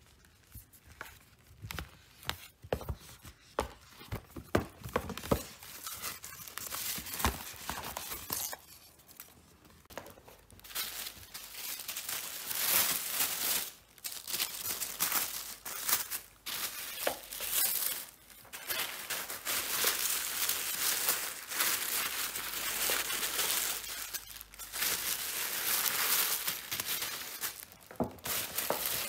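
Sharp taps and knocks as a cardboard gift box is handled. About ten seconds in, thin tissue paper starts rustling and crinkling, more or less continuously, as the box is wrapped in it.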